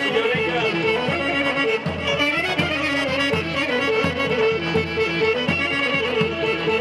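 Pontic folk dance music: a bowed Pontic lyra (kemenche) playing a melody over a steady drum beat.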